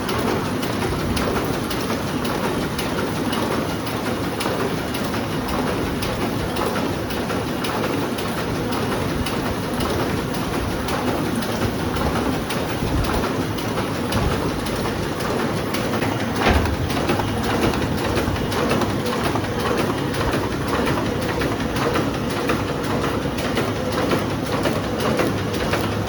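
Offset printing press running: a steady, dense mechanical clatter of rapid fine clicks over a low hum, with one louder knock about two-thirds of the way through.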